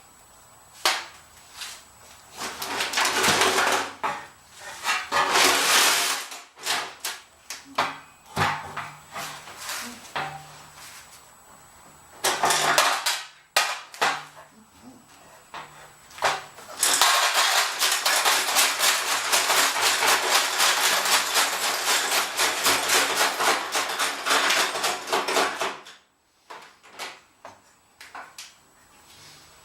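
Loose nuts and bolts rattling and clattering inside and out of a VW gas tank as it is tipped and emptied, the metal pieces having served as tumbling media to scour the tank's inside. A few short bursts of clatter come first, then a long steady spill of rattling metal in the second half that stops abruptly near the end.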